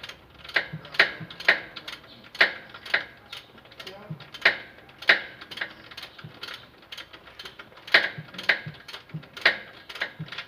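Ratchet wrench clicking in short, irregular strokes while turning bolts on the Toyota Hilux's starter motor mounting.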